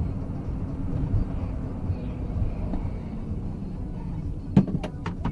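Car driving at speed on an open road: the steady low rumble of tyres and engine picked up inside the cabin by a dashcam. A few sharp clicks near the end, the loudest about four and a half seconds in.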